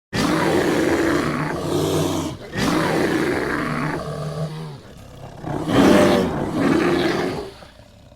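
Bear roar sound effect: a long, loud roar, a brief break, a second long roar, then after a quieter stretch a third roar about six seconds in, the loudest, which fades away near the end.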